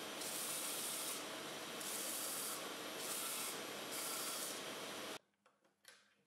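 A lathe-driven homemade belt sander runs steadily while a small wooden block is pressed against the moving belt four times; each pass is a louder hiss of abrasive on wood. The sound cuts off suddenly about five seconds in, and a couple of faint clicks follow.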